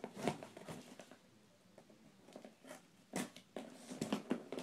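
A cardboard shipping box being handled while its packing tape is picked and scratched open: short scratches, taps and rustles, with a quiet stretch about a second in and a sharper, louder one a little after three seconds, followed by a quick run of small scrapes.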